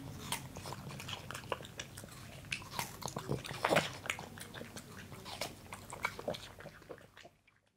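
A Boston terrier licking and biting into watermelon flesh: a run of irregular small clicks and crunches, loudest a little past the middle, dying away near the end.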